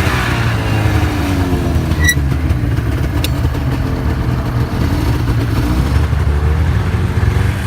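Snowmobile engine running under way, its pitch slowly rising and falling as the throttle changes. A brief high chirp sounds about two seconds in.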